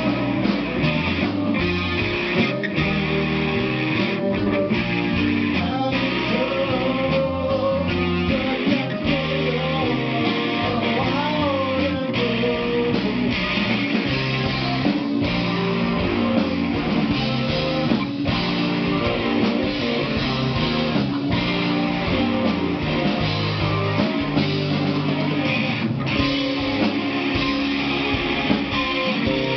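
Band playing loud guitar-driven rock live, with strummed electric guitar over frequent drum hits.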